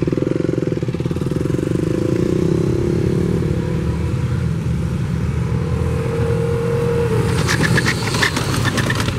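Motorcycle engine running at low riding speed, its pitch sinking over the first few seconds and then holding steady. A quick run of short clicks comes near the end.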